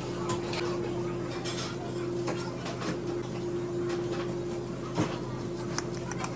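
Knife and fork clicking and scraping against a ceramic dessert plate, with a sharper clink about five seconds in, over a steady low hum.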